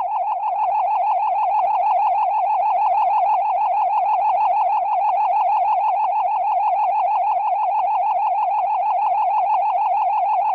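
A steady electronic synthesizer tone warbling quickly and evenly up and down in pitch, held without a break.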